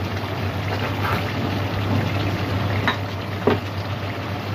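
Thick gourd curry simmering and bubbling in an aluminium kadai over a gas flame, steady throughout, with three short clicks in the middle.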